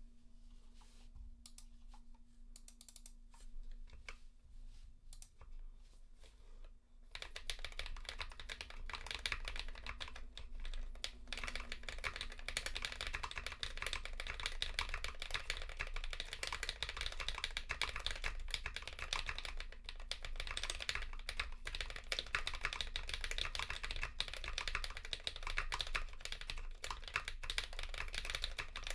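A few scattered clicks, then from about seven seconds in, continuous typing on a custom mechanical keyboard with KTT Rose linear switches lubed with Krytox 205g0 and filmed, in an FR4 half plate with ePBT keycaps.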